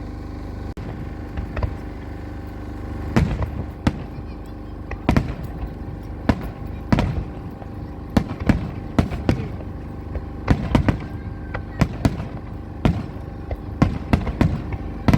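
Fireworks exploding overhead: a few sharp bangs at first, then from about three seconds in a rapid, irregular string of bangs, one to three a second, over a steady low rumble.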